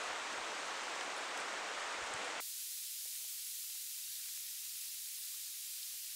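Steady rushing water noise from a river, which about two and a half seconds in cuts off abruptly to a thinner, high hiss with a few faint ticks.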